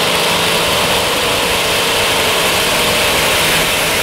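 Supercharged engine of a modified pulling tractor running flat out under load, a loud, steady, dense blare without let-up.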